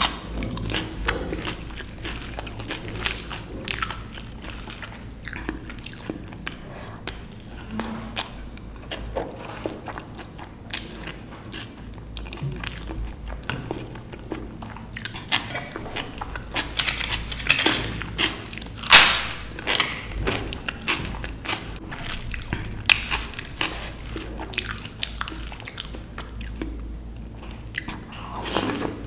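Close-miked eating sounds of a dal and rice meal: wet chewing and mouth sounds broken by irregular sharp crunches, the loudest a little under twenty seconds in.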